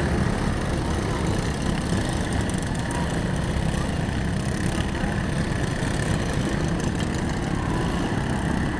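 Lawn mower engines running together in a steady drone, with voices from the crowd beneath.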